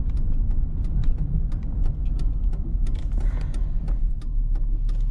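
Truck driving, heard from inside the cab: a steady low rumble with frequent light clicks and rattles.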